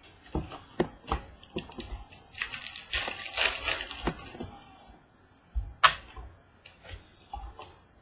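Trading cards being handled and flipped one after another: quick clicks and snaps of card stock sliding and tapping against the stack. From about two and a half to four seconds in there is a denser crinkling rustle, and there is a sharper snap near six seconds.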